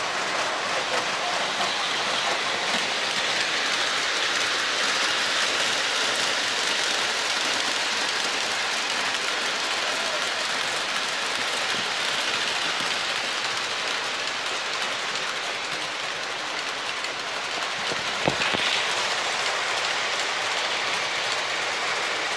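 Model trains running on three-rail O-gauge tinplate track, a steady rolling hiss and rumble from the wheels and motors. A single sharp click comes about 18 seconds in.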